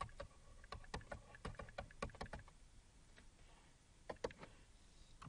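Faint, irregular clicks and taps of a stylus on a graphics tablet during handwriting, with two sharper clicks about four seconds in.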